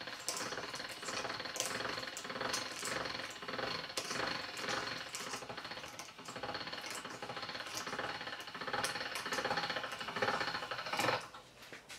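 Hand-cranked stainless steel pasta machine being turned, its gears and rollers giving a fast, even rattling clatter as a sheet of dough is rolled thin. The rattling stops near the end.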